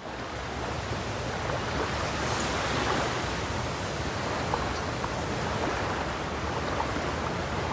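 Heavy ocean surf: a steady rushing wash of breaking waves, building over the first couple of seconds and then holding level.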